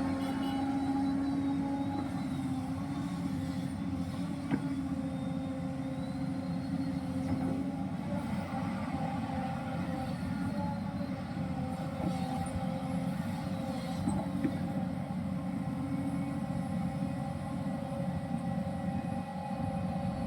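Hyundai R215L hydraulic excavator running as it works, its diesel engine and hydraulics making a steady drone, with a single sharp knock about four and a half seconds in.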